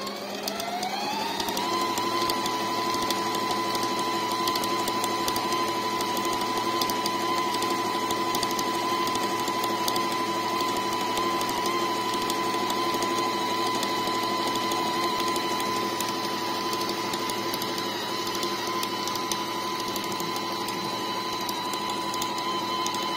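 Brother Tendy Special computer sewing machine running and stitching a zigzag stitch. Its motor whine rises over the first couple of seconds as it speeds up, then holds steady.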